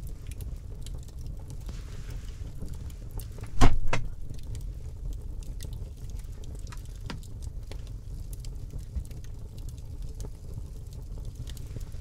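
Wood fire crackling in a small metal stove's firebox, scattered sharp clicks and pops over a steady low rumble, with one loud crack about three and a half seconds in.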